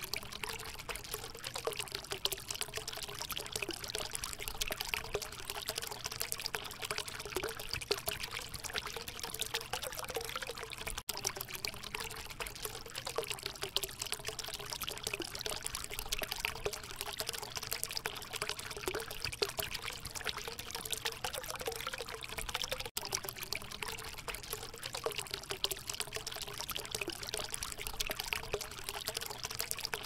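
Small water fountain trickling and splashing steadily into its basin, with two instant dropouts.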